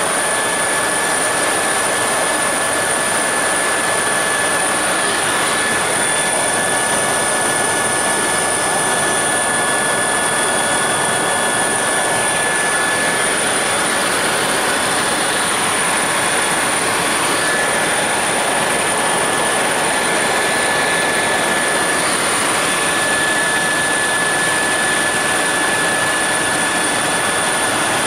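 Helicopter cabin noise in fast forward flight, heard from inside the cockpit: a steady rushing drone with thin, constant high-pitched whines over it.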